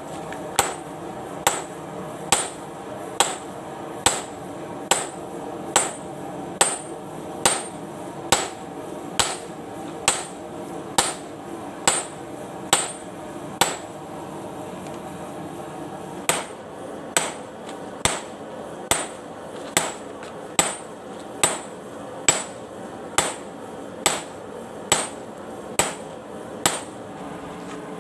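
Hand hammer striking steel on an anvil in a steady rhythm, a little more than one blow a second, each blow with a short metallic ring, forging a golok blade from a used bearing ring. The blows stop for about two seconds midway, then resume, over a steady hum.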